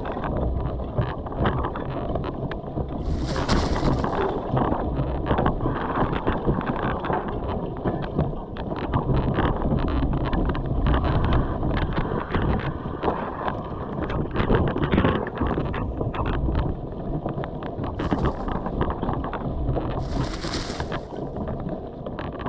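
Mountain bike rolling along a leaf-covered dirt trail: a steady rumble of tyres on the ground with many short rattles and clicks from the bike over bumps, and wind buffeting the microphone.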